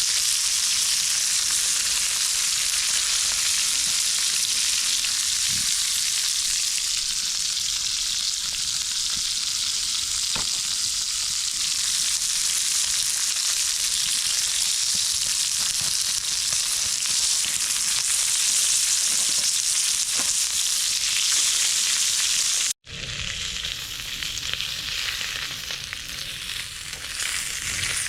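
Food sizzling and frying in a hot pan: a steady crackling hiss. About 23 seconds in it stops abruptly, then carries on a little quieter.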